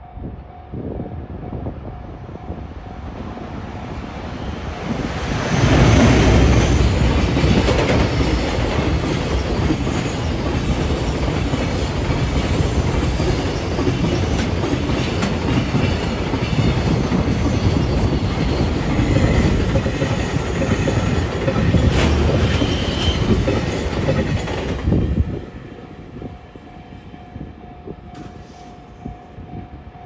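Container freight train hauled by a JR Freight EF510 electric locomotive passing close by, wheels clattering over the rail joints. The rumble builds over the first few seconds, comes up loudly about five seconds in, holds steady as the wagons roll past, and drops away suddenly about 25 seconds in as the last wagon clears.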